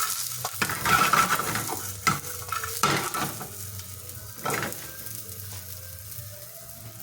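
Roast chicken pieces sizzling in hot oil and curry sauce in a pan, stirred with a utensil that scrapes the pan several times. The sizzle and scraping die down toward the end.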